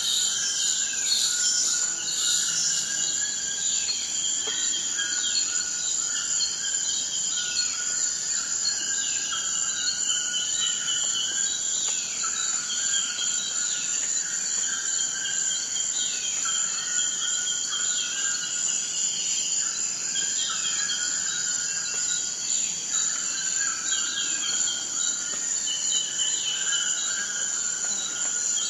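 Amazon rainforest insect chorus: a steady, dense high-pitched buzzing drone. Short repeated animal calls sound underneath it about once a second.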